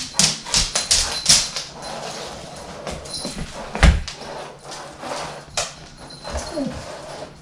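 A dog whining, with a short falling whine near the end, among quick clicks and knocks and one louder thump about four seconds in.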